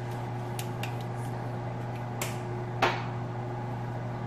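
Small glass spice jar handled and set down: a few light clicks, then a sharper knock nearly three seconds in, over a steady hum.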